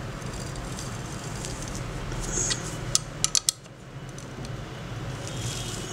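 Small steel open-end wrench clinking against the brass pivot nut of a pair of old steel scissors as the nut is turned, a few sharp metallic clicks in quick succession about halfway through. A low steady hum lies underneath.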